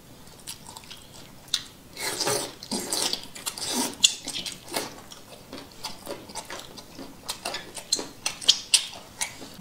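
Close-up eating sounds: noodles being slurped and chewed, with many short, wet mouth clicks and smacks from chewing boneless chicken feet.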